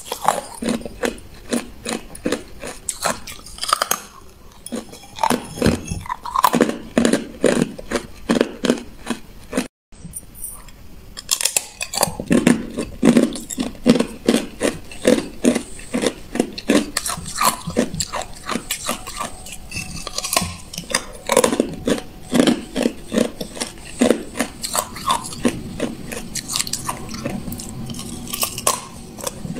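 Hard clear ice being bitten and chewed: a steady run of sharp crunches, several to the second, with a brief dead-silent gap about a third of the way in.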